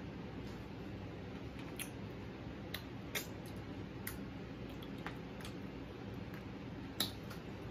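Eating sounds: a fork clicking and scraping on a plate and chewing, heard as scattered short clicks over a steady low background hum.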